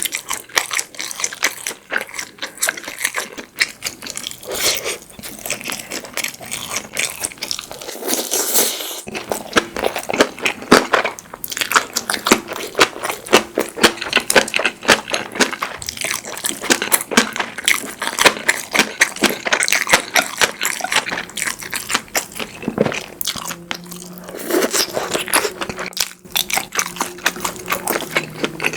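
Close-miked eating sounds: continuous crunching and chewing of a jokbal (braised pork feet) meal, with a dense run of sharp, wet mouth clicks and bites.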